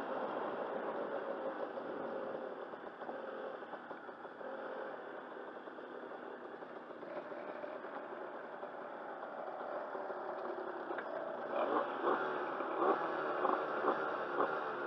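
Dirt bike engine running at low speed as the bike slows and pulls up, then idling. In the last few seconds, sharp regular clicks come about twice a second over the idle.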